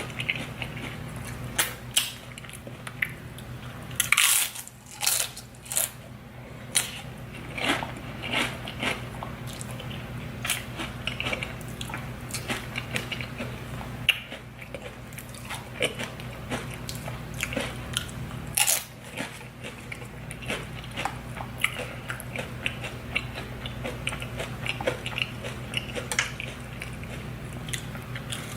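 A person biting and chewing crunchy nacho chips close to the microphone: a string of sharp crunches and crackles with chewing between them, the loudest bites about four seconds in and just before nineteen seconds.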